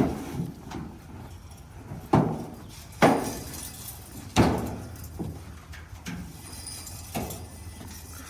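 Horses feeding at a fresh round bale of hay, with about five loud, sudden sounds a second or so apart, the loudest near the middle.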